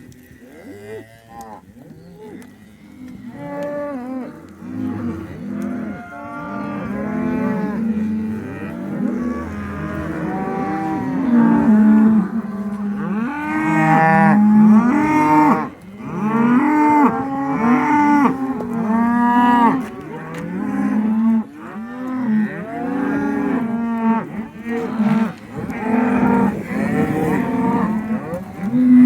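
A herd of cattle mooing, many overlapping calls one after another, growing louder over the first dozen seconds and staying loud.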